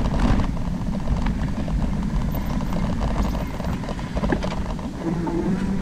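An e-bike riding along a dirt trail: a continuous low rumble with irregular clatter and knocks as the bike goes over the ground.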